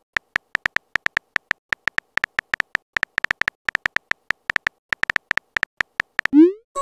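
Texting-app keyboard sound effect: rapid, uneven typing clicks, each with a short high pitch, about eight a second. Near the end a quick rising swoosh marks the message being sent.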